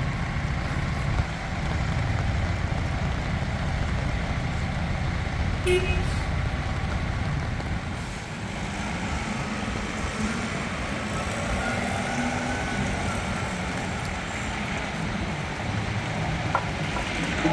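A heavy diesel engine running with a steady low rumble that eases off about eight seconds in.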